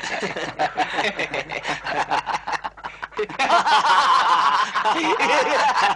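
A man laughing wildly, getting louder and higher about halfway through.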